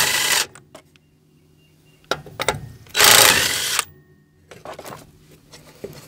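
DeWalt 20V cordless impact wrench hammering on a stubborn wheel lug nut in two bursts: one just at the start and another about three seconds in, each under a second long. A few light clicks of handling come between them.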